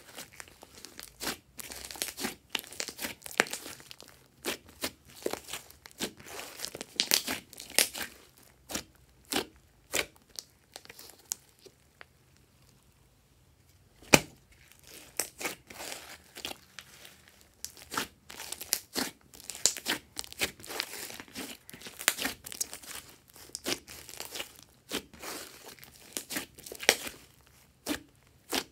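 Hands squeezing, poking and stretching glossy slime, giving irregular sticky clicks and crackling pops. About halfway through there is a short quieter lull, ended by one sharp pop.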